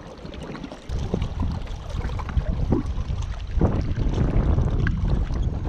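Wind buffeting the microphone, a low rumble that starts about a second in, with a few light knocks and rustles from handling a spinning rod and reel.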